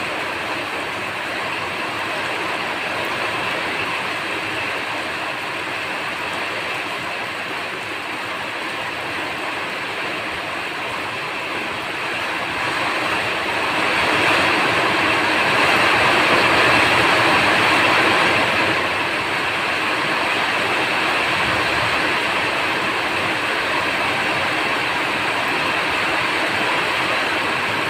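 Steady rain falling, a dense even hiss that grows heavier for several seconds midway before easing back.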